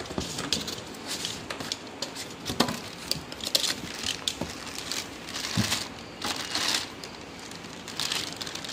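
Cardboard box flaps being opened and the clear plastic bag around a new loudspeaker crinkling as it is handled, with irregular rustles and a couple of dull knocks against the box.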